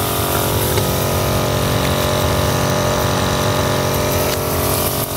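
Motorised crop sprayer running steadily, its motor giving an even drone.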